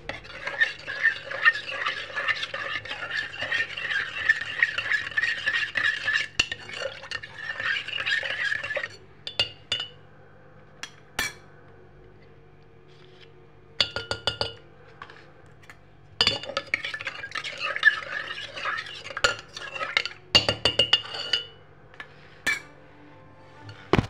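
A spoon stirring rapidly in a metal pot of milk, scraping and clinking against the pot's side as yogurt is mixed in. A long bout of stirring, a pause with a few single clinks, then a second shorter bout followed by several sharp clinks.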